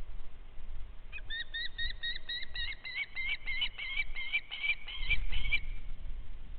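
A bird calling a rapid series of about eighteen short, upward-hooked whistled notes, roughly four a second, that grow louder toward the end. A faint low rumble lies underneath.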